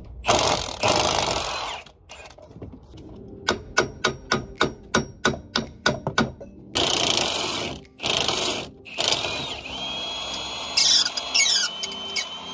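Cordless impact wrench hammering at a seized, rusted bolt on a Peugeot 107's front hub, in several bursts, with a whine in the later bursts that rises and falls. Between the bursts comes a run of sharp metal knocks, about four a second for a few seconds.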